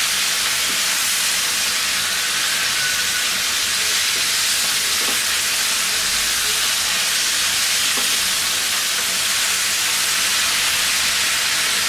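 Steady sizzle of Malabar spinach (pui shak) and salted hilsa cooking in hot oil in a frying pan, as the leaves wilt and soften, with faint stirring from a plastic slotted spoon.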